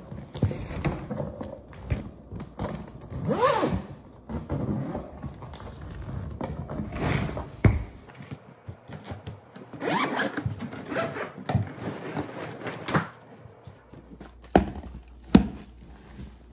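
Hard-shell suitcase being unzipped and handled, with zipper rasps and several sharp thunks as the case is shifted and opened, then rustling as its contents are pulled out; the loudest thunks come near the end.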